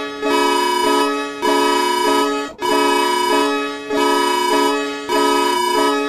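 Emergency alert alarm tone, given as Bhutan's: a loud electronic chord with a reedy, organ-like sound that switches between two chords and repeats about every 1.2 s, with a short dip in level between repeats.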